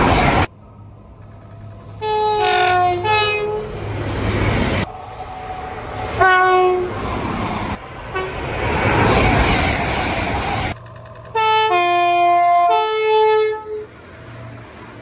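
A string of diesel train horn clips cut together. Chord horns sound several notes at once in blasts of one to two seconds, and some drop in pitch partway through. Between them come stretches of train noise and rumble, and each clip cuts off abruptly into the next.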